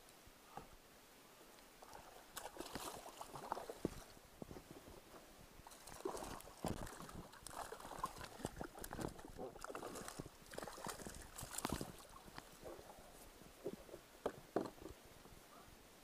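Water splashing at the surface beside a kayak in irregular bursts, with sharp knocks and slaps, from about two seconds in until near the end.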